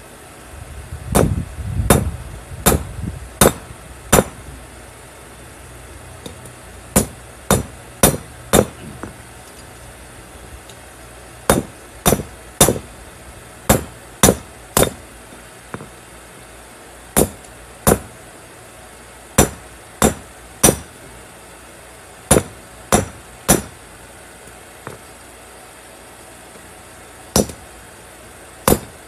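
Hand hammer striking a red-hot coil-spring steel knife blade on a steel disc anvil. The blows come as sharp metallic strikes in short runs of two to six, with pauses of a few seconds between runs.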